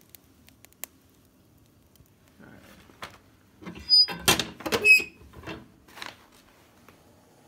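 Handling at a wood stove: a couple of faint clicks, then from about two and a half seconds in a run of metal knocks and clanks with a short squeak, loudest around four to five seconds in, like the stove's metal door being shut.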